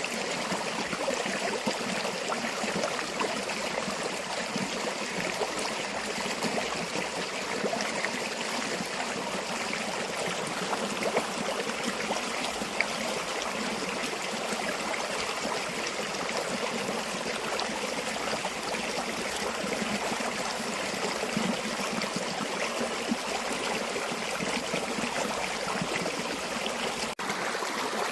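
River water running steadily, a continuous rushing babble with small splashes throughout. A momentary dropout about a second before the end.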